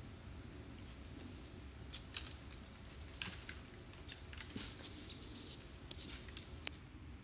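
Faint scattered ticks and rustles for a few seconds, then a single sharp crack near the end, the loudest sound: the shot of a .22 FX Impact M3 PCP air rifle.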